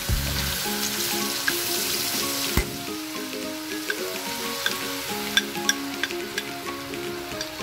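Hot oil in a wok sizzling as an orange kare-kare sauce mixture is poured into it from a bowl. There is a single knock about two and a half seconds in, and light pops of spattering oil in the second half.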